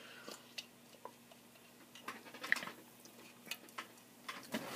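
Faint swallowing and small scattered clicks of a man drinking from a glass and setting it down, over a faint steady hum.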